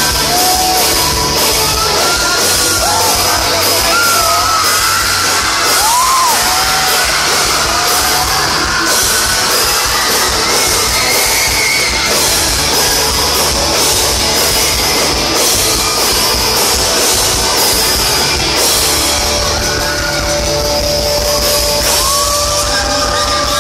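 Pop-rock band playing live in a large, echoing hall: electric guitars, bass and drums under a singing voice, with a held violin tone coming in near the end.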